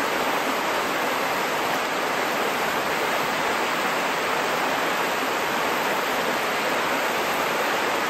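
Steady rushing of creek water spilling over a low stone dam into the pool below.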